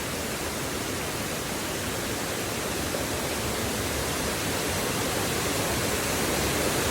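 Steady rushing noise across the whole range, without any distinct events, growing slightly louder toward the end.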